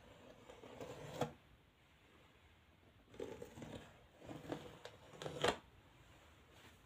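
Faint handling noises: four short rustling, scraping bursts, the first and last ending in a light click.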